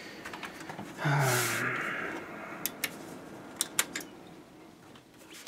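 A short low murmur about a second in, then a few sharp, single clicks of a computer mouse as the PC is being shut down.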